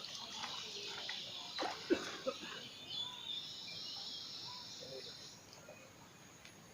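Steady high-pitched insect chirring that stops about five and a half seconds in, with a few faint clicks.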